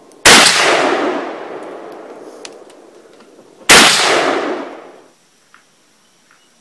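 Two single shots from an AK-47 rifle, about three and a half seconds apart. Each is a sharp crack followed by a long echo that fades over a second or two.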